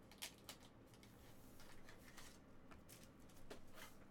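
Near silence with a few faint rustles and light clicks of trading cards being handled and set down on a mat.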